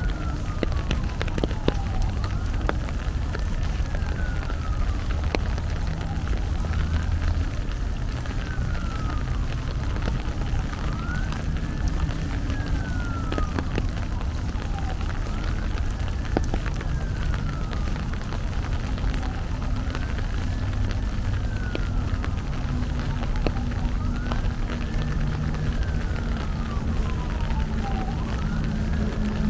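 Emergency vehicle siren wailing, its pitch rising and falling slowly and repeating about every four seconds, over steady rain.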